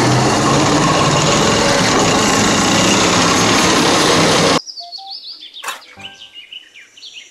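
Main battle tank, which looks like a French Leclerc, driving past: its engine running and its tracks moving make a loud, dense rumble. The rumble cuts off suddenly a little over four seconds in and gives way to quieter high bird chirps.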